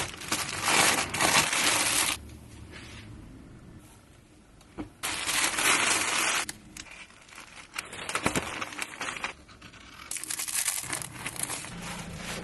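Plastic garment bags and postal mailer bags rustling as sweatshirt orders are packed by hand, in several bursts of a second or two each with quieter handling between.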